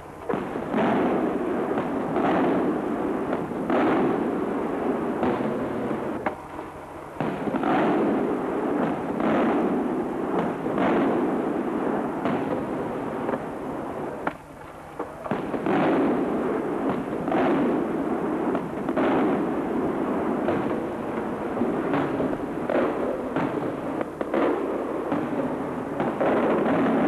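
Aerial firework shells bursting in quick, overlapping succession, a near-continuous run of bangs. It drops off briefly twice, about six and fourteen seconds in.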